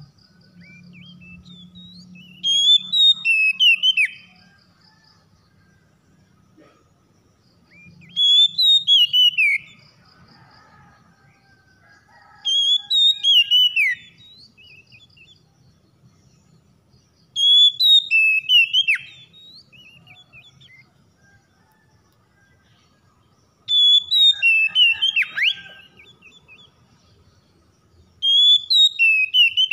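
Oriental magpie-robin singing: six loud phrases of rich, varied whistled notes, each lasting one to two seconds, with pauses of a few seconds between them.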